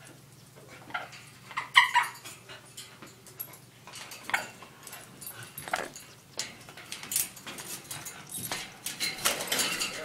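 Dog whining in short bursts at a caged parrot, with scattered clicks and taps as it paws at the wire cage.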